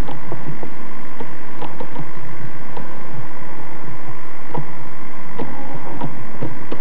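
Steady electrical hum with irregular faint clicks and soft low taps scattered through it.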